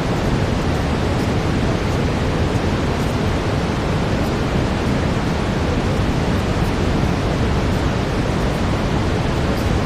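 Steady brown noise: an even, unchanging rushing hiss, heaviest in the bass.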